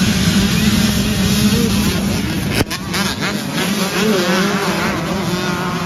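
A whole field of dirt bikes starting at once, a dense wall of engines revving hard. About two and a half seconds in the sound breaks off abruptly, and after it single bikes are heard revving up and down through their gears as they pull away.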